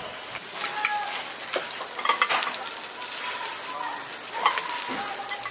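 Mackerel fillets sizzling on a wire grill over a coal-briquette fire, a steady crackling hiss with a few sharp clicks and knocks.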